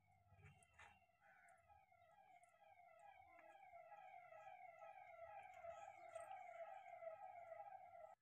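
A siren sounding in quick repeated falling wails, about two a second, growing steadily louder and then cutting off suddenly.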